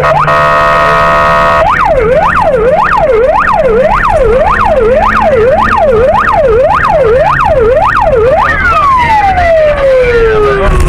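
Police patrol car's electronic siren in yelp mode, sweeping rapidly up and down about two and a half times a second. Near the start it breaks into a brief steady buzzing horn tone, and near the end it winds down in one long falling glide. A low steady hum runs beneath it.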